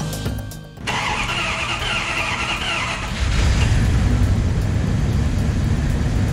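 Dodge Magnum V8 in a 1996 Dodge 1500, fresh from a plenum plate replacement, cranking on the starter for about two seconds. It catches about three seconds in and settles into a steady, rumbling idle.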